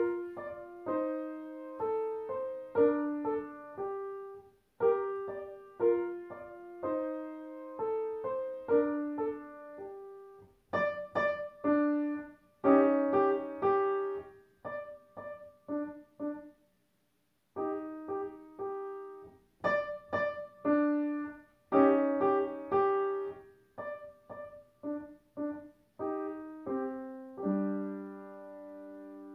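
Yamaha upright piano played by a child beginner: a short piece of single notes and chords in short phrases, the opening phrase played twice. There is a brief pause about two-thirds of the way through, and the piece ends on a held low chord that rings on.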